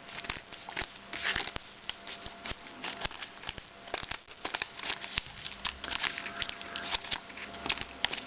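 Plastic retail package being opened by hand: crinkling and crackling plastic with many irregular sharp clicks and snaps.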